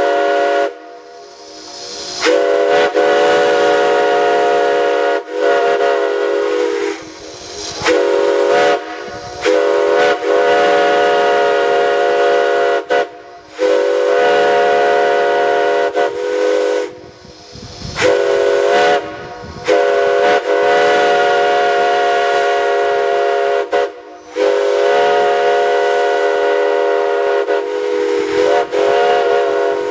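Steam locomotive whistle blowing a series of long, steady blasts, each a few seconds long with short breaks between them, and steam hissing along with it.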